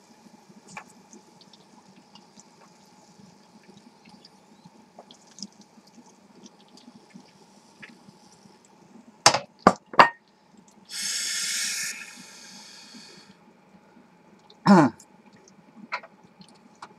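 Hot oil sizzling faintly in a frying pan, with a few sharp clacks around the middle. A loud hiss follows and lasts about two seconds, and there is one more knock near the end.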